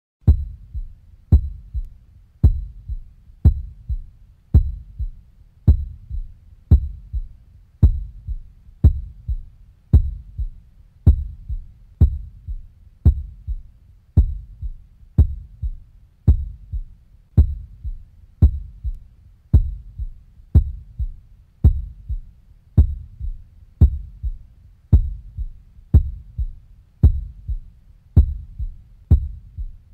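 Slow heartbeat: a steady lub-dub, each beat a strong low thump followed by a softer one, repeating evenly about once a second.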